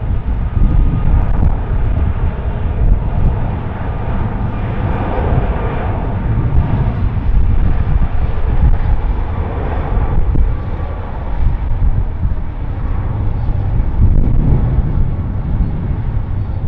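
Jet engines of a four-engined Airbus A340-600 running as it rolls along the runway: a steady deep rumble with a rushing noise over it, swelling and easing a little from second to second.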